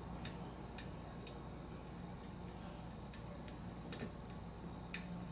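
Faint, irregular clicks of a hook pick lifting the pin stacks of an American 5200 padlock during single-pin picking, about eight light ticks, the sharpest one near the end.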